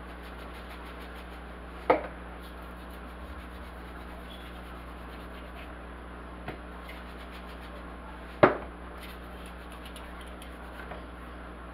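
Faint rubbing and rustling of dried chives being crumbled between the fingers over a sheet pan of raw pork ribs. Two sharp knocks stand out, about two seconds in and again past eight seconds.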